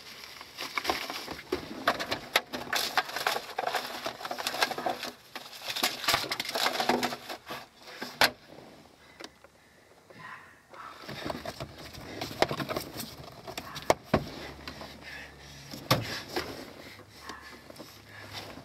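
Leather jacket rustling, with scattered small clicks and knocks from things being handled inside a car. There is a quieter spell about halfway through.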